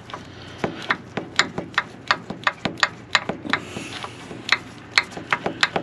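Ratchet wrench clicking as it backs out a long starter mounting bolt on a truck: an uneven run of sharp clicks, a few per second.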